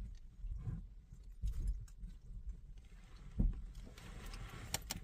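Faint scattered clicks and low knocks of a locksmith working at a door lock, with two sharp clicks near the end.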